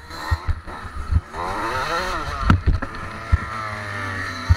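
Small motocross dirt bike engine revving up and down, then running on fairly steadily, with several sharp thumps and knocks as the bike goes down on its side in the dirt.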